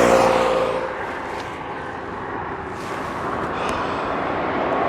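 Steady rush of wind and road traffic noise, with an engine's pitched hum fading out over the first second.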